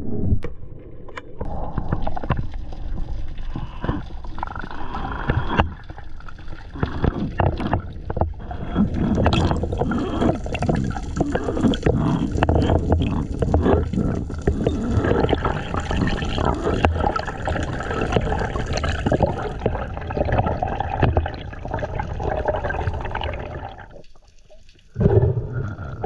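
Water gurgling and rushing around an underwater camera as a spearfishing diver swims, with many small clicks and knocks mixed in; it drops away near the end.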